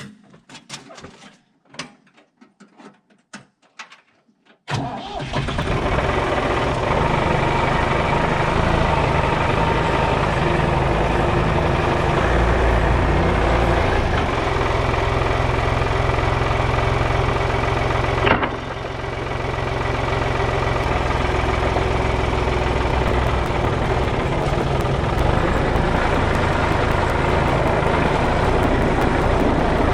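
A few light knocks and clicks, then an engine starts about five seconds in and runs steadily, with one brief dip about eighteen seconds in.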